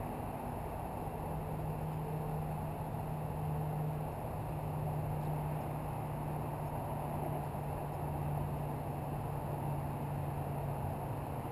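A steady low engine hum, as of a vehicle idling or passing slowly, over a constant haze of urban background noise; the hum sets in about half a second in and fades near the end.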